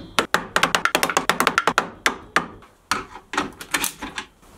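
A steel hammer knocking repeatedly on a 3D-printed plastic steering arm, a rapid run of hard knocks that thins to a few separate ones after about two and a half seconds: a strength test of the newly reprinted part. Background music plays underneath.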